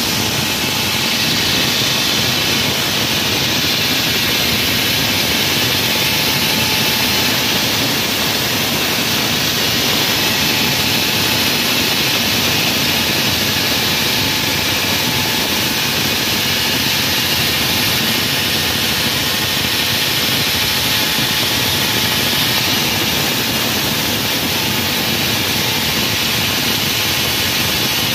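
Wall saw running steadily as it cuts through a wall, a loud, even machine noise that does not let up.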